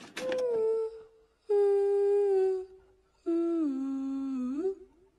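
A person humming a slow tune in three long held notes with short pauses between them; the third note dips lower and slides back up near its end. A brief click comes just as the humming begins.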